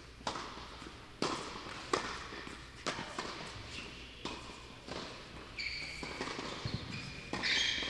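Tennis rally: a ball struck by rackets and bouncing on the court, sharp knocks about once a second. High-pitched shoe squeaks on the court come in the last two seconds.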